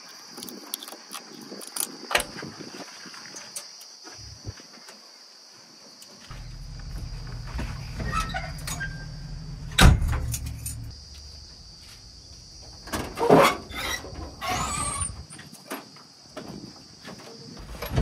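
Clicks and knocks of a key and latch at a JCB 3DX backhoe loader's cab door, then a low engine rumble for a few seconds with a sharp knock in it, and a squeal that slides up and down near the end.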